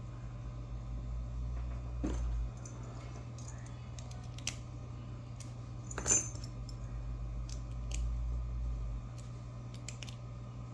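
Light metallic clicks and taps of an American 1100 padlock's core and parts being handled and turned in the hand, with one sharper clack about six seconds in. A steady low hum runs underneath.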